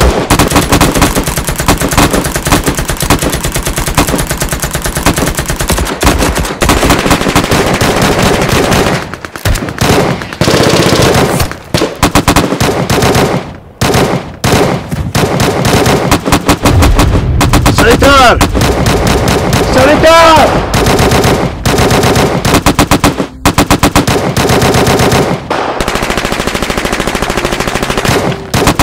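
Heavy automatic gunfire in rapid, sustained bursts, broken by a few short pauses.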